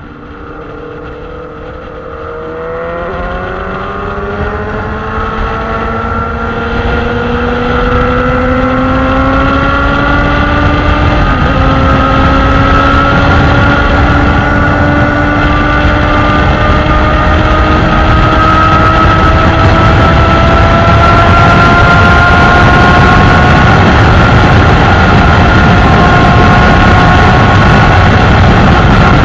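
Sport motorcycle engine pulling hard in a high gear, its pitch climbing slowly and steadily, dipping briefly about eleven seconds in before rising again. Wind rushing over the microphone grows louder with the speed.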